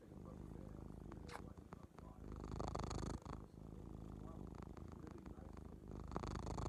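Domestic cat purring right at the microphone, a continuous low rumble that swells louder about every three and a half seconds with its breathing, near three seconds in and again near the end.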